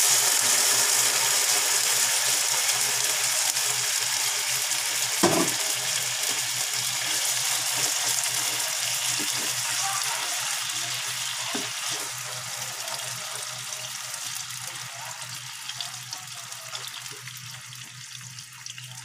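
Canned meat sizzling in hot oil in a nonstick frying pan, loud as it goes in and slowly dying down. A spatula breaks it up and scrapes the pan with scattered knocks, the loudest about five seconds in.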